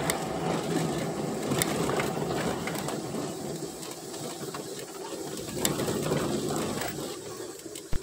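Car driving slowly over a rough dirt road, heard from inside the cabin: a dense, irregular rattle from the body and suspension over the running engine, with a few sharper clicks.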